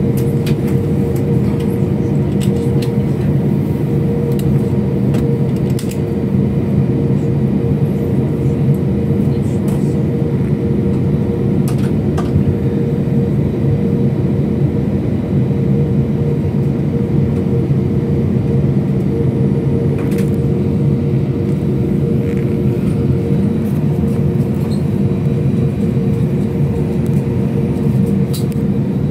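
Steady engine and airflow noise inside a passenger airliner's cabin: a constant low hum with a steady higher tone over it, with a few faint clicks.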